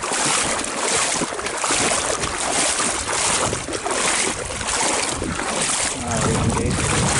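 Legs wading through shallow water, sloshing in a steady rhythm of about two surges a second, with wind rushing on the microphone.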